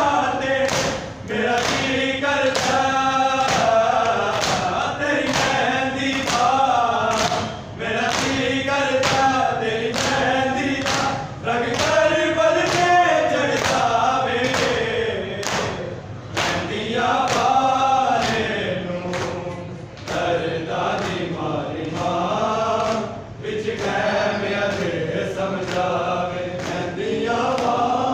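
Male voices chanting a noha, the Shia lament for Imam Hussain, in repeated sung phrases, with the steady beat of hands slapping chests (matam) keeping time.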